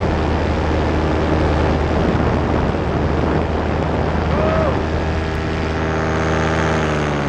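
Powered paraglider's paramotor engine and propeller running steadily in flight; its pitch shifts slightly near the end.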